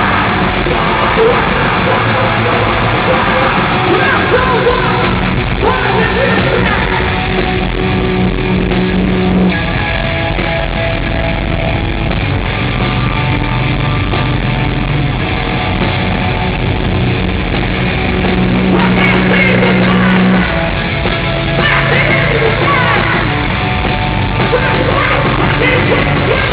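A heavy metal band playing live: distorted guitars, bass and drums, with shouted vocals.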